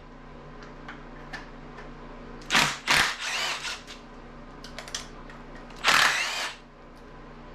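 Two short runs, about a second each, of a handheld power tool, a cordless drill or driver, spinning out the coil-pack bolts on a 5.3 LS engine. Faint clicks of tools and parts are heard between the runs.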